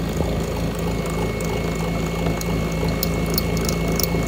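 Harbor Freight mini mill with its belt-driven 500 W motor upgrade, the end mill taking a 1 mm deep cut in aluminum at a feed rate of 120. A steady motor hum with a thin high whine, and quick sharp high ticks from about halfway in.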